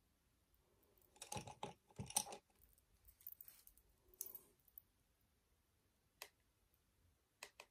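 Faint clicks and taps of a small plastic makeup pot and a brush being handled: a quick cluster about a second in, softer ones after, and single clicks near the middle and end.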